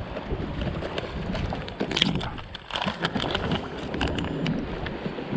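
Wind buffeting the microphone, with crinkling, rustling and sharp clicks from handling a plastic tackle tray and a resealable soft-plastic lure packet.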